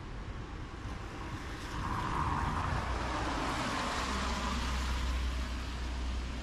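A road vehicle passing close by on a city street. Its sound swells about two seconds in, its pitch drops as it goes past, and it fades out near the end.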